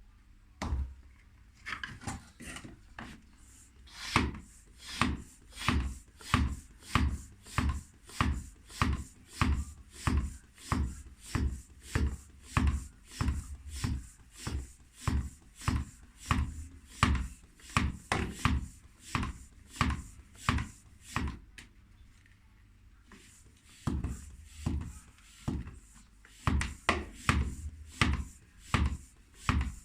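Bicycle hand pump being worked to inflate a rear tyre freshly filled with Slime sealant: steady, rhythmic pumping strokes at a little under two a second, with one short pause past the middle.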